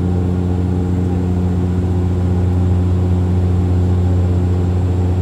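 Aircraft engine drone heard from inside the cabin: a loud, steady low hum with a stack of overtones that holds an even pitch throughout.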